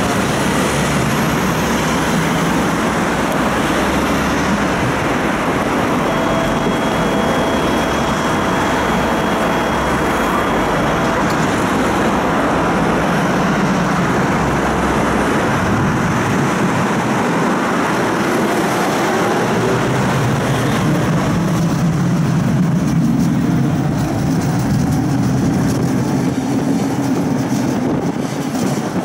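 Steady running noise heard from inside a tram: a rumble and hum from the car itself, with road traffic going by outside the window.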